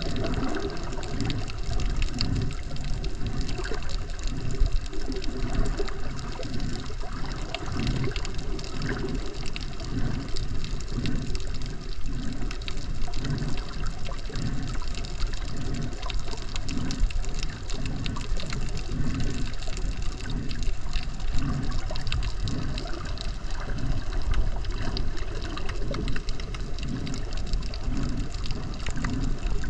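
Water sloshing and rushing around a camera held underwater, with a steady rhythmic pulsing about twice a second.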